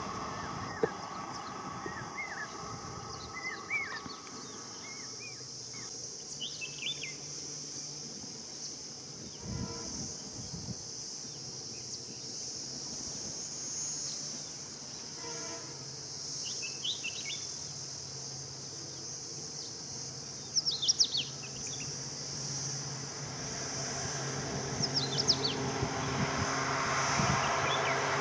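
Insects buzzing steadily with short bird chirps now and then. Toward the end the rumble of an approaching diesel-hauled train grows louder.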